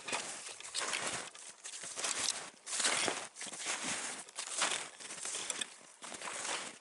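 Footsteps crunching through deep, fresh snow at a steady walking pace, one step about every half second.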